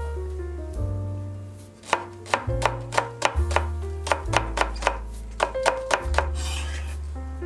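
Chef's knife slicing a Korean green onion into thin rings on a wooden cutting board: quick, even knocks of the blade on the board, about four a second. They start about two seconds in and stop about six seconds in, over background music with a steady bass line.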